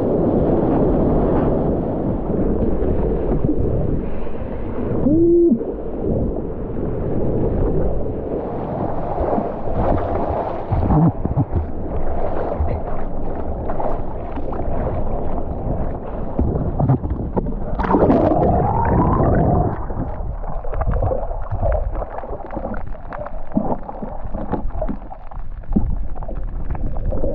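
Sea water rushing, sloshing and gurgling against a waterproof action camera at the surface as a surfboard moves through it, with repeated splashes from hand paddling and the muffled bubbling wash of the camera dipping under.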